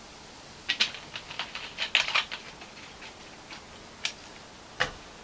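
Light, quick clicks and clinks as the Faygo Firework soda is topped into the glass of whiskey. They come in a fast run of about two seconds starting a second in, then three single clicks later on.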